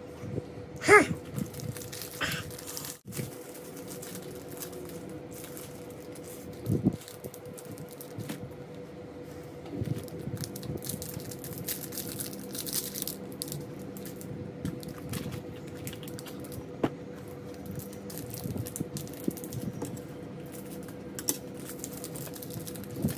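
Plastic wrapper of a small Cadbury Dairy Milk bar crinkling and crackling as it is torn open by hand, in repeated bursts through the second half. A short vocal sound that slides down in pitch comes about a second in, over a faint steady hum.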